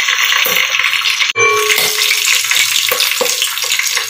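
Green chillies and whole spices sizzling and crackling in hot oil in a non-stick pot, stirred with a spatula at first. It is a steady frying hiss peppered with small pops, with a brief break about a second in.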